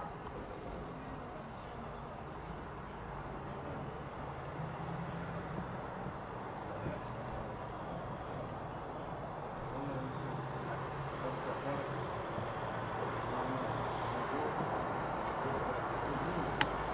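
A cricket chirping steadily in an even pulse, about three chirps a second, over a low hum of distant town traffic. A single sharp click near the end.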